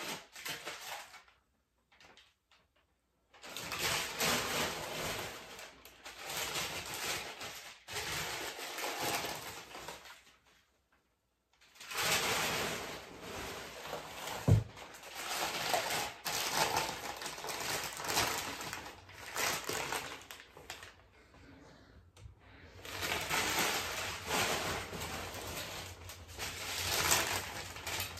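Packing paper rustling and crinkling as paper-wrapped glassware is unwrapped from a cardboard box, stopping twice briefly. About halfway through there is a single sharp knock, the loudest sound.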